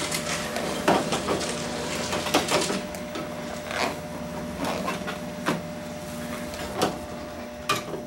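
Irregular clicks and knocks of a screwdriver against the plastic and sheet-metal parts of a microwave oven as its control panel is unscrewed and worked loose, over a steady faint hum.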